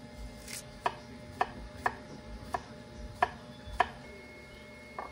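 A kitchen knife slicing cucumber on a wooden cutting board: about seven sharp chops at an uneven pace, roughly one every half second.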